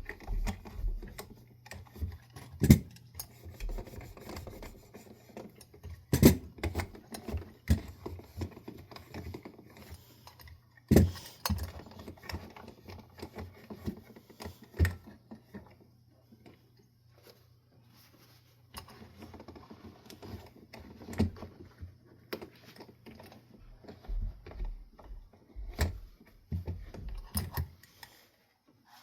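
Metal ceiling fan light kit parts being handled and set down: irregular clinks and knocks, several louder ones spread through, with a quieter lull about halfway.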